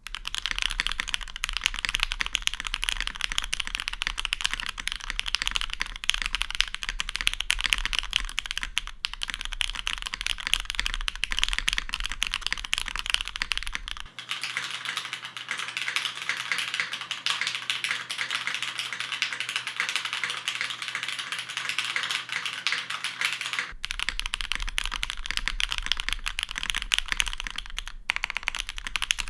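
Continuous fast typing on a custom Matrix mechanical keyboard with polished, lubed Hyperglide Cherry MX Black linear switches and GMK keycaps: a dense, rapid run of key clacks with a few brief pauses.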